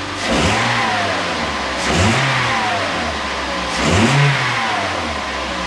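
2008 Toyota Yaris's 1.5-litre four-cylinder engine blipped three times from idle, each rev rising and dropping back. No exhaust leak is heard, with the damaged manifold flange just replaced by a bolt-on split flange; it sounds like a Yaris should.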